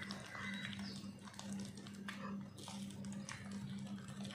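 Wire hand whisk beating thick cake batter in a stainless steel bowl: soft squelching strokes with light scrapes and clicks against the metal. A low hum runs underneath.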